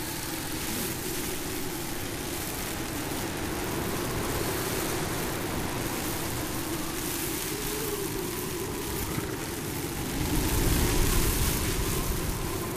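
Blizzard wind blowing steadily, with a low wavering moan under the hiss, gusting louder with more low rumble about ten seconds in.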